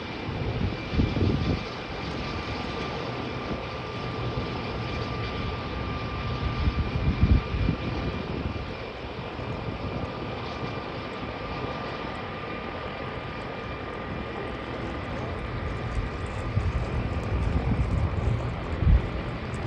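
De Havilland DHC-3 Otter floatplane taxiing on the water, its engine and propeller running steadily with a constant whine. Low rumbles swell up a few times, about a second in, midway and near the end.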